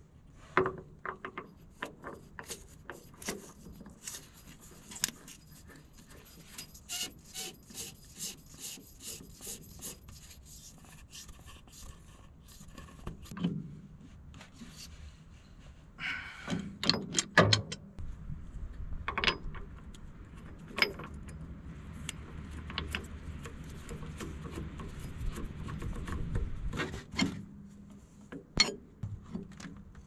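Steel fittings and wrenches clicking and scraping as hose fittings are threaded into a new winch hydraulic pump and tightened with a pipe wrench and a combination wrench: many small separate metal clicks, a cluster of louder clicks about halfway through, and a low rumble under the second half.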